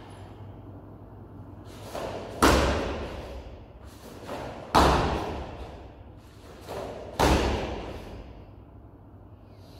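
Three hard stamps of a bare foot onto foam puzzle mats, about two and a half seconds apart, each with a softer sound just before it and each dying away briefly in the hall. These are the stamping steps into horse stance in the karate kata Heian Sandan.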